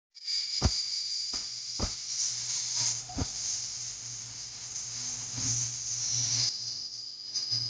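Music played through speakers by a TDA7265 stereo amplifier board as an audio test. It comes across as a bright, hissy sound with a low steady bass note and a few deep thumps in the first few seconds.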